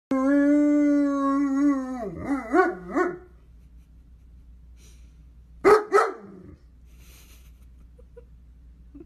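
A German Shepherd-type dog howling: one long steady note for about two seconds that breaks into a wavering, up-and-down howl. After a pause, about two-thirds of the way in, it gives two short, sharp barks.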